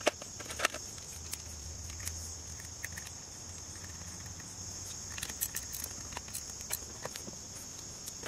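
A few sharp metallic clicks and light taps from hands and tools fitting the starter cable and its 10 mm nut onto an ATV's starter motor, the loudest two about half a second apart at the start and more scattered later, over a steady high-pitched insect chorus.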